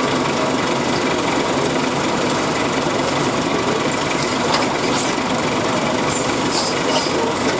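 Nova RTS city bus heard from inside the cabin, its Detroit Diesel Series 50 inline-four diesel running with a steady drone and road noise. A few light clicks or rattles come from about halfway through to near the end.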